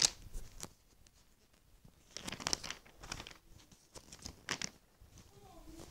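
Magazine pages being handled and leafed through: short bursts of paper rustling, coming and going, with a sharp click right at the start.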